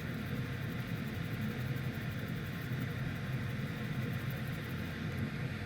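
Steady low hum of workshop background noise, with no distinct events.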